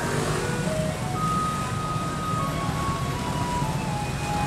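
A Taiwanese garbage truck's loudspeaker playing its tune, a simple electronic melody of single held notes, over the rumble of the truck's engine.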